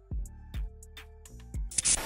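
Background music beat: deep, pitch-dropping kick-drum thumps with short hissy ticks between them, and a loud noisy hit near the end.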